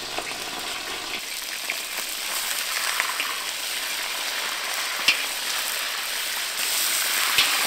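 Large bone-in pieces of lamb frying in hot rendered tail fat in a cast-iron kazan: a steady sizzle that grows louder about two thirds of the way in. A few sharp clicks come as a metal skimmer turns the meat against the pot.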